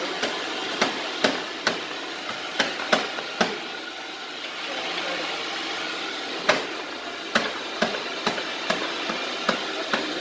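Irregular sharp clicks and knocks of hand tools on metal, about sixteen of them with a quieter gap in the middle, over a steady hiss.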